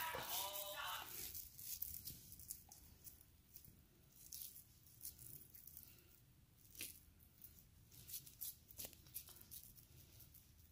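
Hands pulling apart and pressing a soft, moist mixture of ground beef and chana dal into shami kabab patties: faint, scattered squishes and pats.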